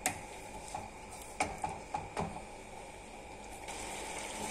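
Wooden spatula stirring thick spinach puree in a pan, knocking against the pan a few times, then a soft steady sizzle of the puree frying from near the end.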